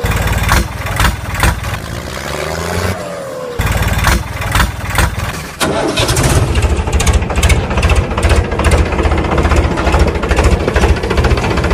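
Tractor engine sound effect: an engine cranking and catching in uneven bursts, then settling about six seconds in into steady running with a fast, even chug.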